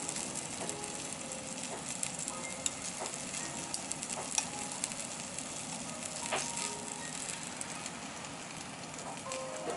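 Wagyu sizzling steadily on a tabletop charcoal grill, with a few sharp clinks of metal tongs against a ceramic sauce dish.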